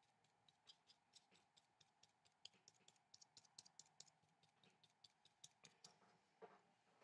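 Faint, quick taps of a small paintbrush dabbing white tempera onto watercolour paper, several a second and irregular.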